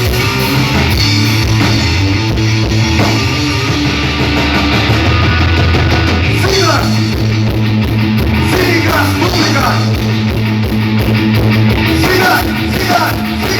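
Rock band playing live and loud, with electric guitar, bass and drum kit keeping a steady beat. Gliding pitched lines enter about halfway through.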